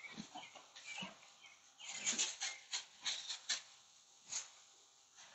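Plastic bag crinkling and rustling in irregular short bursts as it is rubbed and moved over a horse, loudest and most continuous about two to three and a half seconds in.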